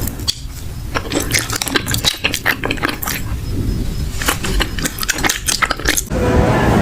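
Close-up crunching and chewing of a Korean corn dog's crisp fried batter, a rapid run of crackly clicks. About six seconds in, music takes over.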